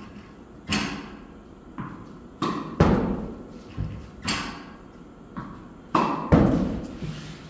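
Tennis balls being hit with a racket on backhands and bouncing on the court, a string of sharp hits and bounces about once a second, each ringing out in the enclosed indoor court.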